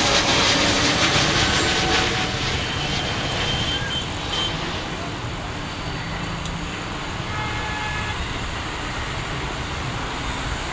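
Twin-engine jet airliner's engines climbing away after takeoff: a steady rushing engine noise, loudest for the first two seconds and then fading to a lower rumble as the plane recedes.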